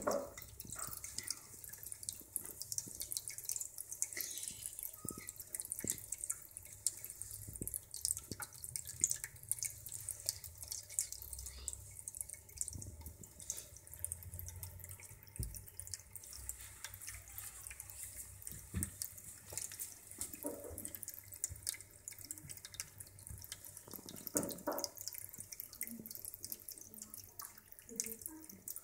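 Pet drinking fountain running: thin streams of water pour from the spouts on its central column and splash steadily into the water in the bowl.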